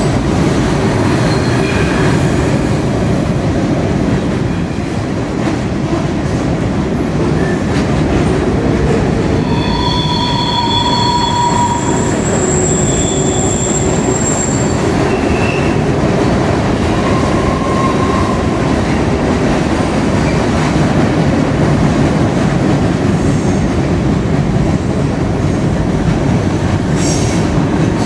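Freight cars of a manifest train rolling steadily across a steel railroad trestle: a continuous rumble and rattle of wheels on the bridge, with high-pitched wheel squeals rising over it for several seconds around the middle.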